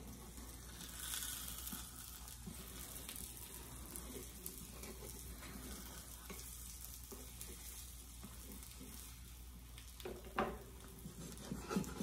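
Egg omelet frying quietly in a nonstick skillet, with a spatula stirring and scraping in the pan. A few sharp knocks near the end.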